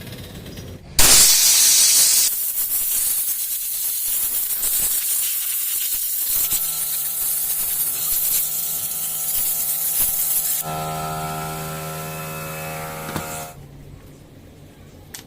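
Compressed air blasting through chainsaw carburetor parts to clean them: a loud hiss that starts suddenly about a second in, joined about halfway by a whistling tone, and cuts off near the end.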